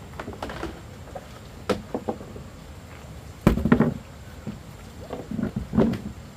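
Irregular knocks and clattering of hard objects being handled, a few scattered strikes and then a dense rattling cluster about three and a half seconds in, the loudest moment, followed by more knocks.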